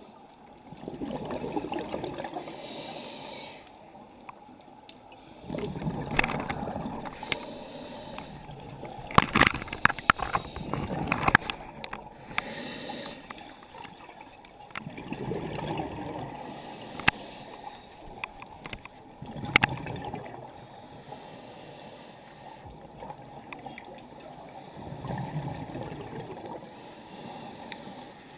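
Scuba regulator heard underwater: exhaled air bubbling out in a gurgling swell every four to six seconds. A few sharp clicks between the breaths are the loudest sounds.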